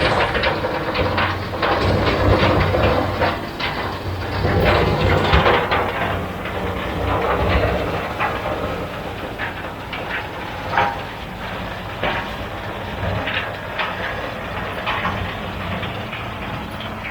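Tractor engine running under way, with loose metal clanking and rattling at irregular knocks, loudest in the first half and easing off later.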